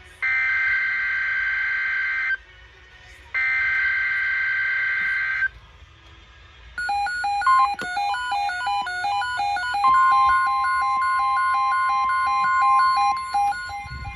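Emergency Alert System SAME header data tones: two bursts of about two seconds each of harsh two-pitch digital warbling, with a one-second pause between them. About seven seconds in, a fast run of two-tone electronic beeps starts. A few seconds later a single steady alert tone joins beneath them and holds almost to the end.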